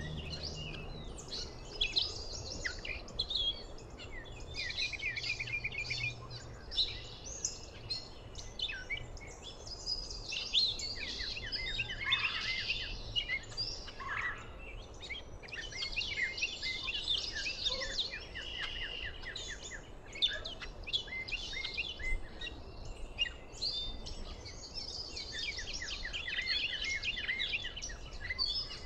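Dawn chorus: many songbirds singing at once, with overlapping chirps, whistles and rapid trills throughout.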